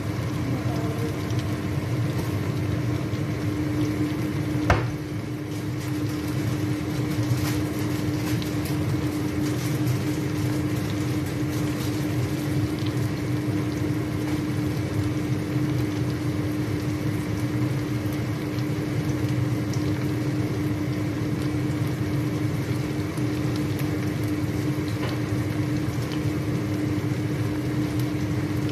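Chicken pieces frying in hot oil in a pan, sizzling steadily over a constant low hum. One sharp click about five seconds in.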